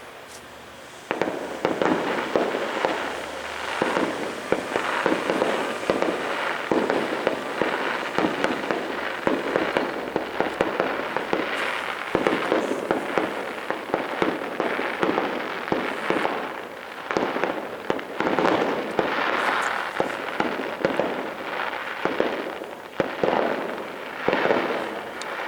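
Fireworks going off in a dense, rapid crackle of many small bangs. It starts suddenly about a second in, rises and falls in waves, and dies away near the end.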